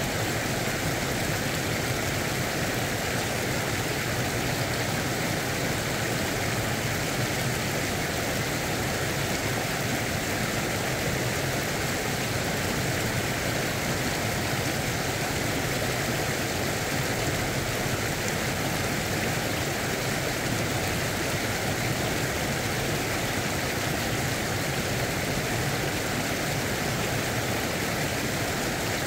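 Stream water rushing steadily over a low weir and rapids, an even noise with no breaks.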